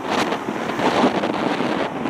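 Gusty wind buffeting the microphone, mixed with the jet engine noise of a Boeing 767-300 flaring just before touchdown. The noise swells and dips unevenly.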